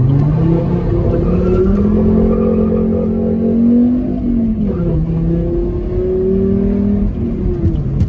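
Lowered Volvo's engine heard from inside the cabin as it accelerates: its note climbs, drops about four and a half seconds in at a gear change, climbs again and drops once more near the end.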